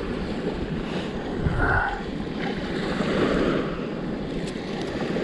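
Wind buffeting the microphone over a steady wash of small waves along the beach.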